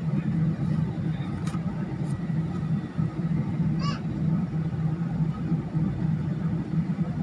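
Steady low drone inside a jet airliner's cabin as it taxis, its turbofan engines at low taxi power. A short high warbling chirp sounds about four seconds in.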